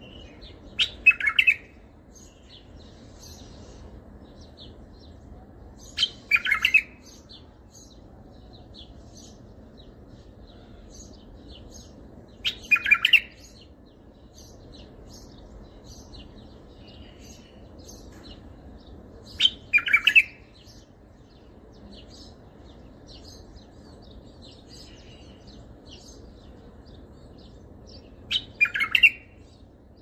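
Bulbul singing short song phrases in the Baghdadi style, five phrases spaced roughly six seconds apart, each about a second long, with faint chirps between them over a steady low background hiss.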